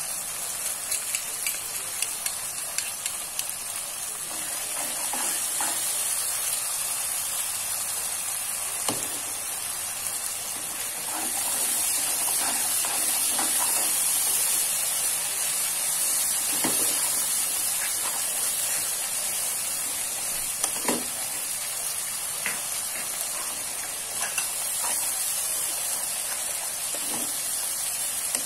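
Chili sambal sizzling steadily as it fries in a wok, with a spatula scraping and knocking against the pan now and then as it is stirred.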